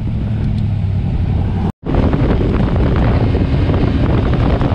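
Kawasaki Versys-X 300's parallel-twin engine running steadily at low speed, then, after a sudden break about two seconds in, riding at highway speed, louder and noisier with wind rushing over the microphone.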